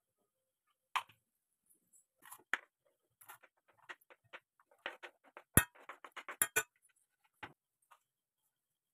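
Chopped onion being scraped off a wooden chopping board into a small stainless-steel pot: a run of light clicks and taps, with one sharp knock a little past halfway and a quick cluster of clicks right after it.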